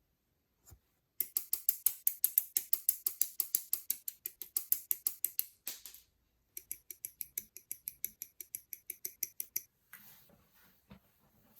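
Rapid, even clicking of hard plastic model-kit parts, about seven clicks a second, in two runs of several seconds with a short break about halfway.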